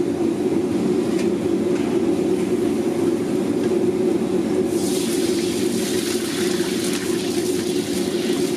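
Steady noise of a gas wok burner under a hot wok. A little under five seconds in, oil ladled into the hot wok sets off a loud sizzling hiss with fine crackles that carries on.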